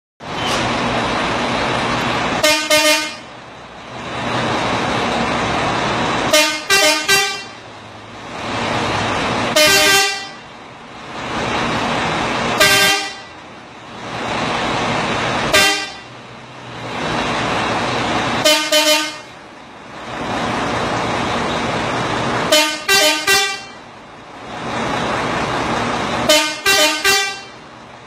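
Truck horn driven by a rhythm horn module, sounding short blasts about every three seconds: some single, some in quick clusters of three or four. A loud, steady rushing noise fills the gaps between the blasts.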